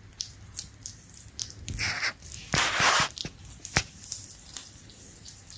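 Paper tissue crackling and rustling as a newborn kitten is held and rubbed through it, with a scatter of small clicks and two longer crinkling rustles about two and three seconds in.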